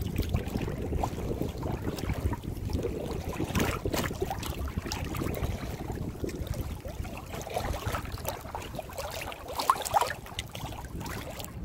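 Kayak paddle strokes: water splashing and trickling off the paddle, over a steady low rumble of wind, with scattered small clicks and knocks. A short louder sound comes about ten seconds in.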